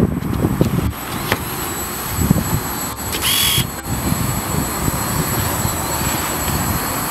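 Small DIY quadcopter's electric motors and propellers whining steadily as it flies, with wind buffeting the microphone. A brief high-pitched sound stands out about three seconds in.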